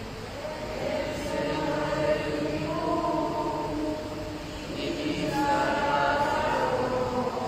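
A woman singing the responsorial psalm into the lectern microphone in long, held phrases.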